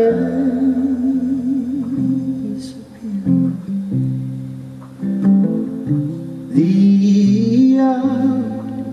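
Male singer performing live with an acoustic guitar: a long sung note with vibrato, then a few plucked guitar notes, and another sung phrase near the end.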